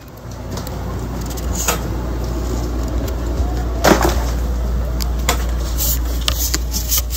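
Footsteps and small knocks on a wooden floor over a steady low rumble, with one louder thump about four seconds in.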